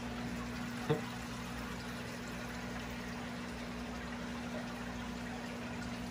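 Aquarium pump and filtration running: a steady low hum with water trickling. A single short click about a second in.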